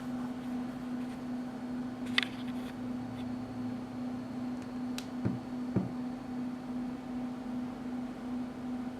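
A steady low hum with a few faint clicks and two soft knocks a little past the middle, like small objects being handled during an unboxing.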